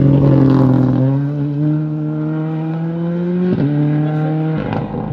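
Rally car engine pulling hard as the car drives away. Its pitch climbs steadily, drops sharply once at an upshift about three and a half seconds in, then holds steady.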